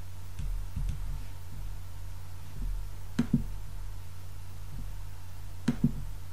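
A steady low hum with two quick double clicks, about three seconds in and again near the end, and a few faint ticks at the start.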